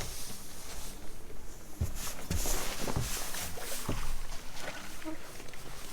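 Four dull thumps on a boat over about two seconds, against a steady background of wind and water noise.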